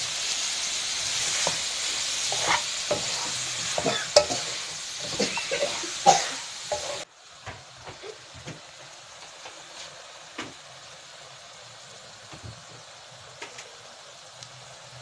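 Shelled mussels sizzling in hot oil while a wooden spatula stirs them, with many sharp clicks and scrapes against the pan. About seven seconds in, the sound cuts abruptly to a much quieter hiss with occasional faint clicks.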